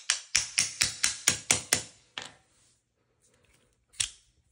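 A quick run of about nine sharp metal taps, about four to five a second, then a single tap near the end, from the parts of an AR-15 buffer being handled and worked into line.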